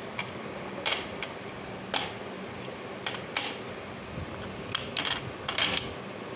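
Hard pieces of butter-roasted edible clay (nakumatt) clicking and clinking against each other and the plate as they are handled, about ten sharp clicks at irregular spacing. The hard clinking shows how hard and crisp the roasted clay pieces are.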